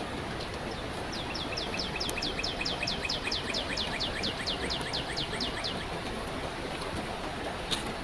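A bird calling a rapid series of short falling notes, about five a second, starting about a second in and stopping after some four and a half seconds, over the steady rush of a flowing river.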